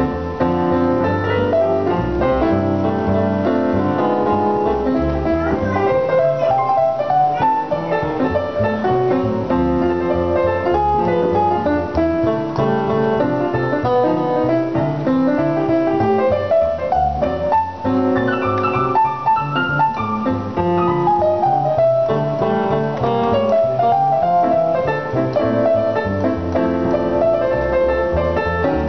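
Jazz duo of digital piano and plucked upright double bass playing, the piano's notes and chords over a low bass line.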